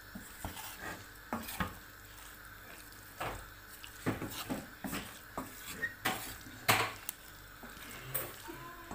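Wooden spoon stirring pasta in cream inside a stainless steel pot, with irregular scrapes and knocks against the pot's sides; the sharpest knock comes late on.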